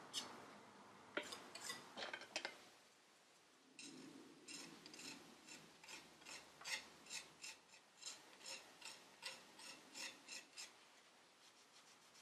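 Small metal putty knife scraping over water-based putty and painted wood, faint: a few strokes at first, then a run of short, quick scrapes about two a second as the putty is worked into a chip.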